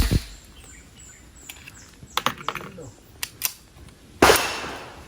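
.45 caliber gun fitted with a homemade suppressor firing: one sharp shot at the start and another about four seconds in, the second trailing off in an echo. A few lighter clicks and clinks come between them.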